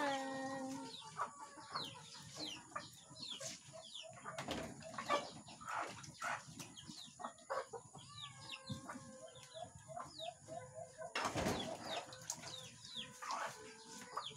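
Chickens clucking, with short high chirps, over the clatter of plates and plastic dishes being washed by hand in a basin. A run of repeated clucks comes about eight seconds in, and a louder rush of noise about eleven seconds in.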